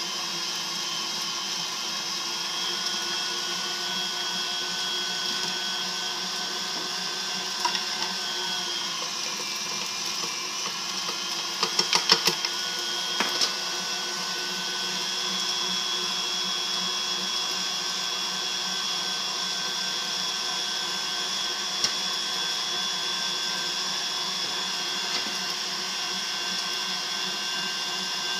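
KitchenAid stand mixer's motor driving its meat grinder attachment, grinding cubed beef with a steady whine. The whine dips briefly in pitch about ten seconds in. A few sharp knocks follow about twelve seconds in.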